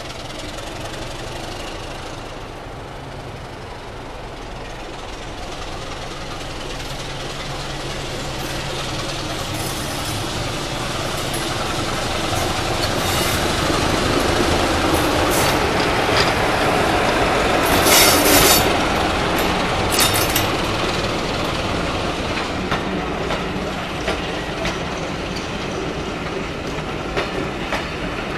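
BR Class 25 diesel locomotive D7535 approaching and passing, its Sulzer six-cylinder engine running with a steady low note that grows louder as it nears. As it and its coaches go by, the wheels click over the rail joints, with a brief loud rasping burst about two-thirds of the way through.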